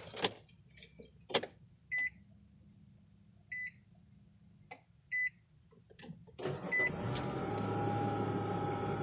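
A 2004 Nissan Xterra SE's dashboard warning chime beeps four times about a second and a half apart after a couple of clicks. About six and a half seconds in, the V6 engine starts and runs steadily with a low hum and a constant whine: the noise the owner is asking about, unsure whether it is normal.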